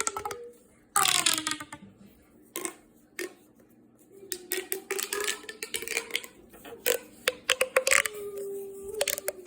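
Plastic fidget toy being worked by hand: a run of irregular sharp clicks and rattles, with a squeaky falling sound about a second in and a few short squeaky tones.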